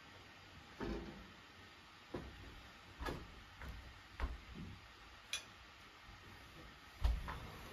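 Scattered soft knocks and clicks, with a heavier low thump about seven seconds in: footsteps across a carpeted floor and a serving plate of rice being set down on a floor cloth.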